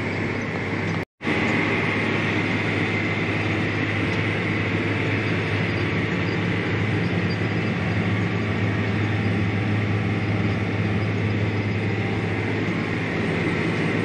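Tractor engine running steadily under load while pulling a chisel plow, heard inside the cab, a low drone with a steady high whine over it. The sound cuts out completely for a moment about a second in.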